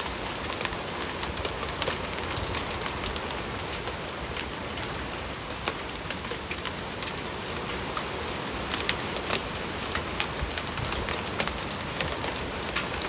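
Heavy rain mixed with small hail: a steady rain hiss with frequent, irregular sharp ticks of hail pellets striking.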